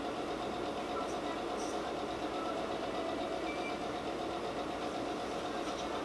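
A steady mechanical hum, with several faint steady tones running through an even noise.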